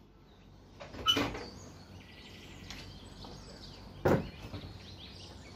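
White wooden louvered window shutter being opened, with two sharp knocks about three seconds apart, the first the louder.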